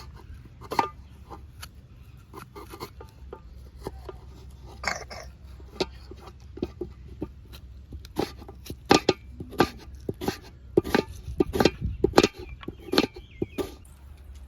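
Irregular sharp knocks and taps over a low steady hum, sparse at first and coming thicker and louder in the second half.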